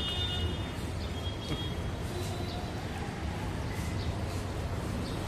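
Soft sounds of eating by hand: faint scattered clicks as fingers work rice and curry in a metal plate and the mouth chews. Beneath them runs a steady low outdoor rumble, with a few faint bird chirps.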